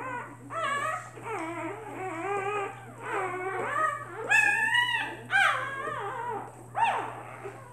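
Newborn puppies crying in a string of high, wavering whines and squeals, one after another. It is the fussing of a hungry puppy trying to get to a teat while its littermates are nursing.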